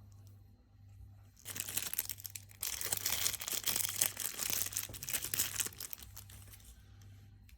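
Plastic packaging crinkling and rustling as it is handled and opened: a dense run of fine crackles that starts about a second and a half in, is loudest in the middle and fades out near the end.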